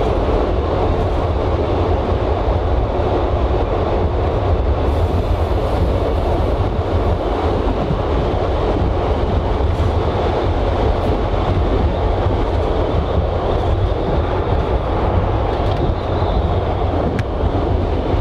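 CPH 'Tin Hare' diesel railmotor running steadily along the line, heard on board: a continuous deep engine drone mixed with wheel-on-rail noise and a few faint clicks.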